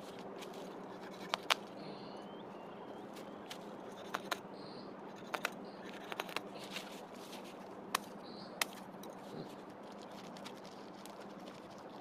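Outdoor ambience: a steady background hiss with a faint low hum, broken by about a dozen short, sharp clicks and snaps scattered at irregular times, and a few faint high chirps.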